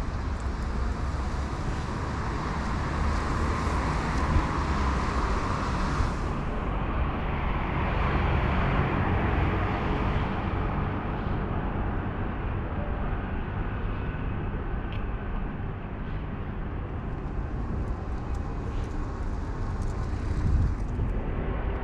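City street traffic on wet roads: cars passing with tyre hiss over a steady low rumble. A brighter hiss in the first six seconds drops away sharply.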